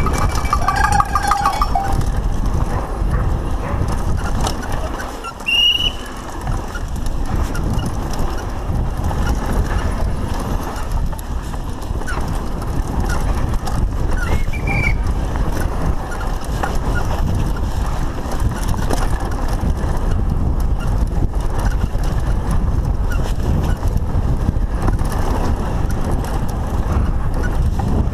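Lapierre Spicy mountain bike descending a rough dirt downhill trail at race speed: a constant rumble of tyres and wind on the microphone, with the bike rattling and knocking over roots and bumps throughout. A spectator shouts near the start, and a few short high squeaks sound along the way.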